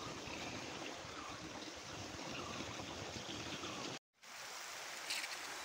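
Gravity-fed water sprinkler spraying a long jet of water over a coffee plantation, a steady hiss of water, which cuts out briefly about four seconds in.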